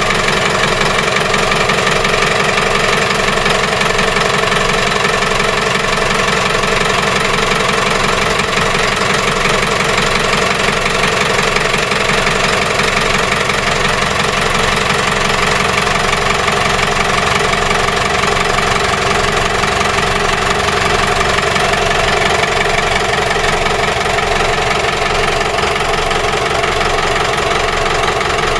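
Inboard engine of a small powered fishing boat running steadily at a constant speed, with no revving or stopping.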